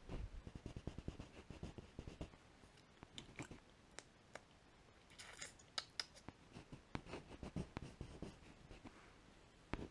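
Coloured pencil scratching on paper in quick runs of short hatching strokes, with brief pauses between the runs.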